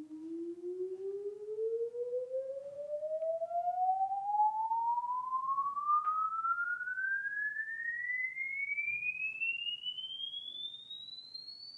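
A hearing-test frequency sweep (the 20–20,000 Hz test tone) played over loudspeakers: a single pure tone rising smoothly and steadily in pitch from a low hum to a high whistle.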